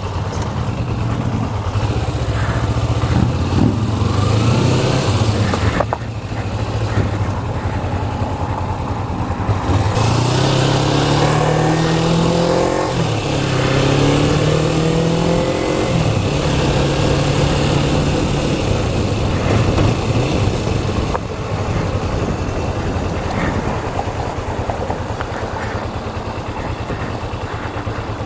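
Motorcycle engine under way, heard from the rider's seat. About ten seconds in it pulls hard, the pitch rising in steps as it shifts up through the gears, with wind noise rushing over the microphone. Later the wind noise drops as the bike eases off and slows.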